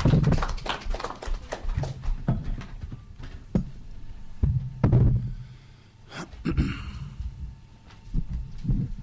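Irregular thumps and knocks of a table microphone being handled and moved on its stand, loudest about a second in and again about five seconds in.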